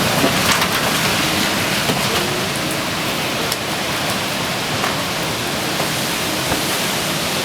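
Steady, even hiss of hurricane wind-driven rain, with a few faint clicks.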